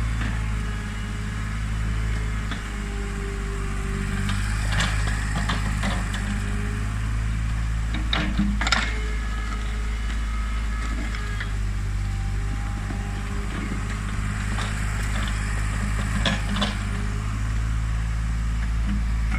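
Diesel engine of an old Komatsu PC40 mini excavator running steadily under working load, with a few sharp metallic clanks from the machine as it scrapes and moves soil.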